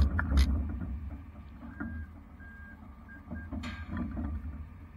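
Low rumble of the rollback tow truck running, with a couple of sharp knocks near the start and again near the end, and a few faint short electronic beeps in between.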